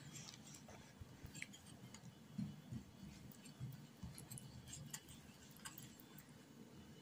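Faint, irregular light ticks of a wire whisk knocking against a ceramic bowl as flour is stirred into wet cake batter.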